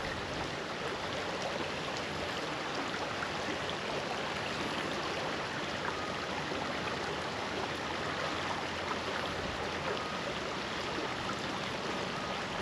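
Shallow creek water running steadily over a riffle.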